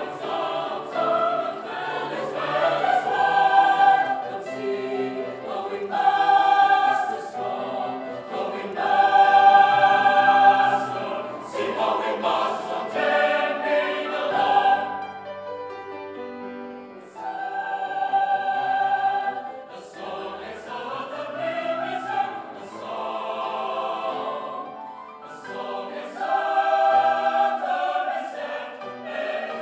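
Mixed choir of men's and women's voices singing a slow piece in harmony, with long held chords and short pauses between phrases.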